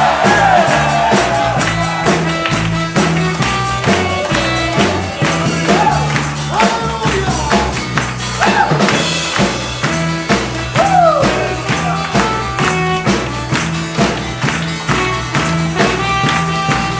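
Instrumental church band music with a fast, steady beat of tambourine and drums over a stepping bass line, with a few sliding melody notes.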